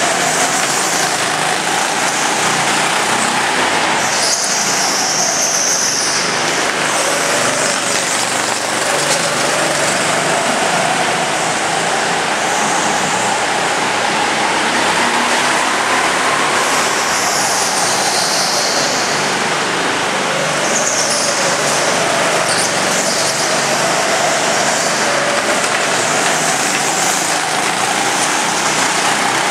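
Go-kart engine running steadily as the kart laps an indoor track, its pitch rising and falling every few seconds through the corners and straights, echoing in the hall.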